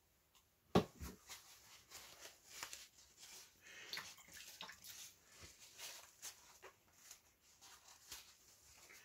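Faint scattered clicks and light taps of small objects being handled on a workbench, with one sharper click about a second in.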